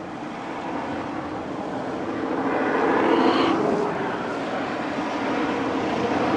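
Highway traffic: a vehicle passing by, its engine and tyre noise swelling to its loudest about halfway through and then fading.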